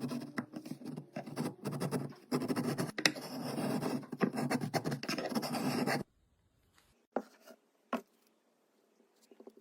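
Hand chisel scraping in quick, rough strokes for about six seconds, then stopping, followed by two light clicks.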